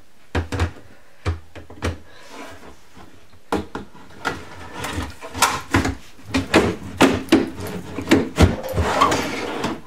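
Wooden pull-out shelf being fitted and slid in and out of a kitchen cabinet on plastic drawer guides: a few knocks at first, then from about a third of the way in a quick run of wooden knocks and rubbing scrapes. The shelf runs a little tight at the back.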